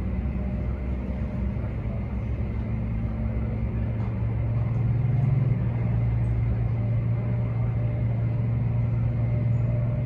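Aircraft pushback tug's engine running hard under load, a steady low drone that gets louder about four seconds in. The tug is straining against a Boeing 777 it cannot move, its wheels slipping on the glycol-wet ramp.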